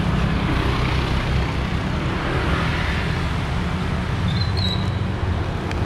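Motor scooters riding past on a street, a steady rumble of small engines and road traffic.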